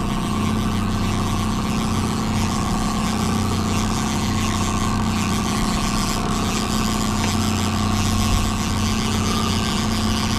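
A boat's outboard motor running steadily at trolling speed, an even drone that does not change.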